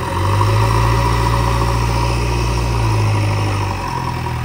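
JCB 3DX backhoe loader's diesel engine running steadily with a low drone. Its note dips briefly near the start and again near the end.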